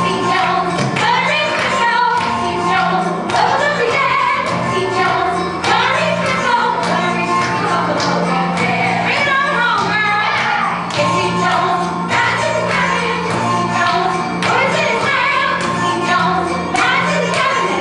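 A woman singing into a microphone over musical accompaniment, played through a theatre's sound system.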